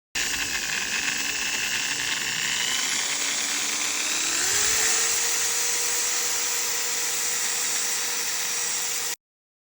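Makita M8100 hammer drill running, its motor pitch rising about four seconds in and then holding steady; the sound cuts off suddenly near the end.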